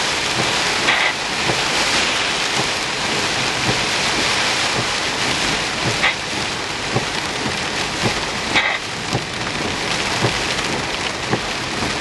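Heavy rain beating on a moving vehicle, a loud steady hiss with many scattered sharp drop hits.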